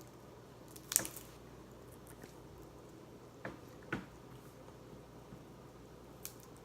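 Seafood shells being cracked and picked apart while eating: a few sharp cracks and clicks, the loudest about a second in, with faint wet eating sounds between them.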